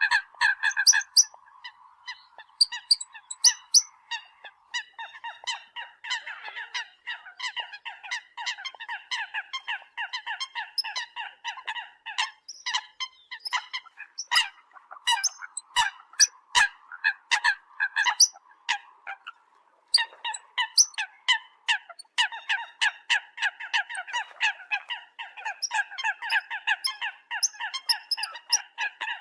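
Eurasian coot calls: a fast, continuous string of short call notes, several to the second, pausing briefly about 5 seconds in and again about 20 seconds in.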